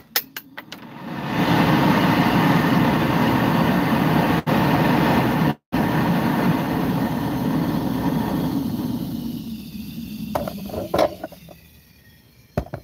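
A round-bottom flask on a hotplate venting a jet of gas and flame from its neck: a loud, steady rushing hiss that builds over the first second and fades away about ten seconds in. A few short knocks follow near the end.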